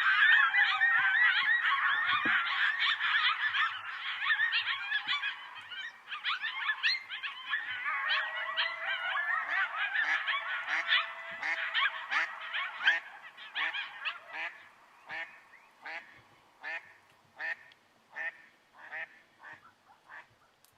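A group of coyotes howling and yipping together in a dense chorus of many wavering calls. It thins out in the second half into separate short yips, coming roughly one or two a second and getting quieter toward the end.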